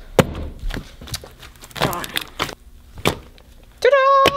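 Orange homemade slime being pressed and folded by hand to trap air into a large bubble, giving a handful of sharp, wet clicks and pops spread through the moment.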